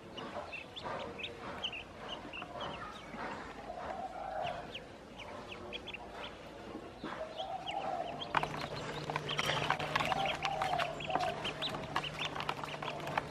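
A group of ducklings peeping, many short high calls. From about eight seconds in, a busier run of knocks and scuffles joins them, along with a low steady hum.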